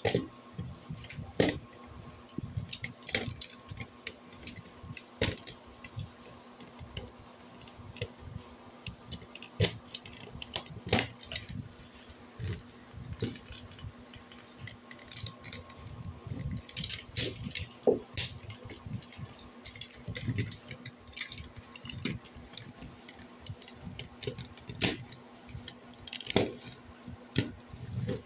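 Hard plastic parts of Tobot transforming toy robots clicking and clacking irregularly as they are handled and snapped together, several knocks a second at times.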